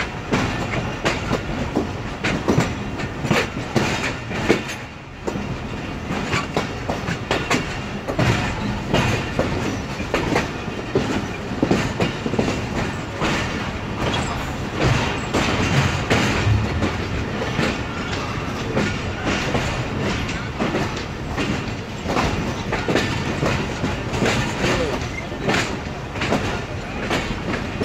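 A moving Pakistan Railways passenger train, heard from an open coach door: the steady running rumble of the coaches, with wheels clicking irregularly over rail joints and yard points.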